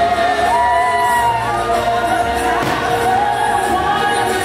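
Fireworks-show soundtrack: a song with a sung melody over full musical accompaniment.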